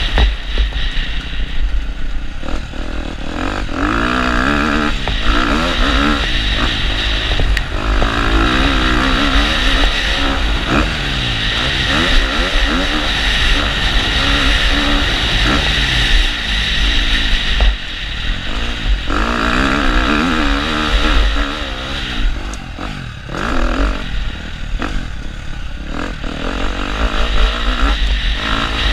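KTM motocross bike's engine revving hard, its pitch climbing and dropping again and again with throttle and gear changes, under heavy wind buffeting on the helmet-mounted camera.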